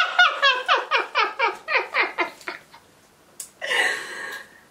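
A woman's high-pitched laughter: a quick run of about a dozen 'ha' pulses, each dropping in pitch, fading out after about two and a half seconds, followed by a short breathy exhale.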